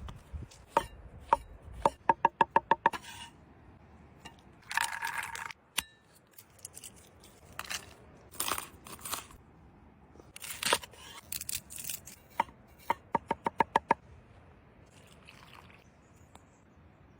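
Knife chopping on a cutting board in two quick runs of strokes, about eight a second, with a few short scraping sounds between.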